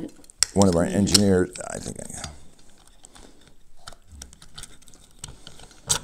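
Light metal clicks and taps as the plates and bearing carrier of a Pharos hand coffee grinder are pressed and fitted together by hand, with a sharper click near the end. A short voice sound, the loudest thing here, comes about a second in.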